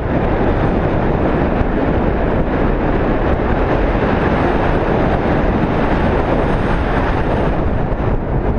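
Wind blowing across the microphone: a loud, steady rumbling rush with no distinct events.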